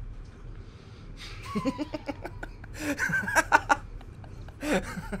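Laughter in short, choppy bursts, starting about a second and a half in and loudest a little past the middle.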